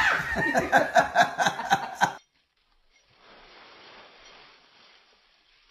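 A person laughing in quick pulses for about two seconds, cut off suddenly. Then a faint, brief rustle of dry leaves being kicked.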